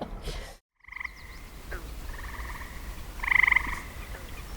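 Frogs calling: a series of short, fast-pulsed trills, each lasting under a second, repeating every second or so, with the loudest one about three and a half seconds in.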